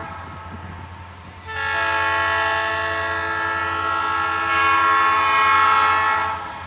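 Air horn of an EMD GP40 diesel locomotive blowing one long steady blast for a grade crossing, starting about a second and a half in and stopping just before the end. The tail of an earlier blast cuts off at the very start.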